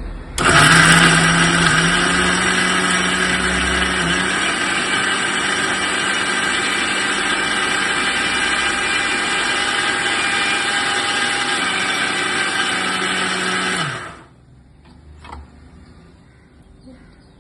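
Butterfly Arrow 500 W mixer grinder running on speed 2, grinding coriander chutney in its jar: the motor starts just after the beginning, runs steadily with a high whine, then is switched off about 14 seconds in and winds down. A few faint clicks follow.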